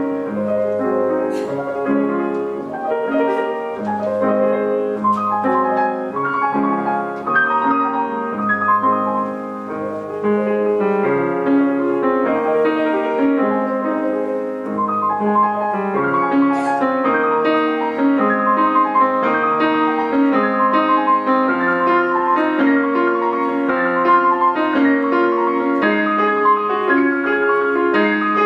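Solo piano playing, several notes sounding together under a moving melody.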